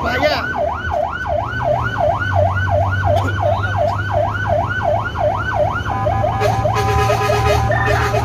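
Electronic emergency siren, heard from inside the vehicle's cab, sweeping up and down about twice a second, then switching about six seconds in to a faster, choppier tone pattern. The vehicle's engine drones steadily underneath.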